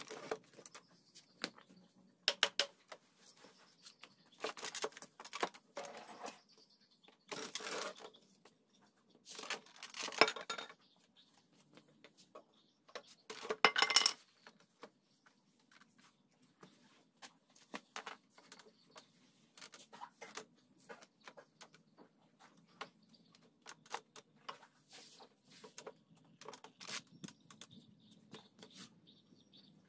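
Claw hammer striking the joints of a wooden table frame: clusters of sharp knocks, the loudest about fourteen seconds in, with lighter taps and clatter between.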